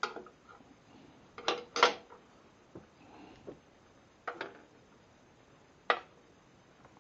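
Hard knocks and clanks as a long level is set and shifted against a sliding compound miter saw's fence and table: about five separate sharp hits, the loudest nearly two seconds in, with quiet between.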